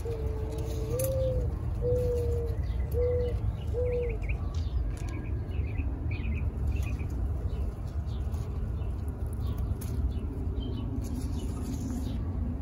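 A dove cooing, a run of about five low notes in the first four seconds, over a steady low rumble. Faint small-bird chirps and scattered rustles and clicks from tomato plants being handled as cherry tomatoes are picked.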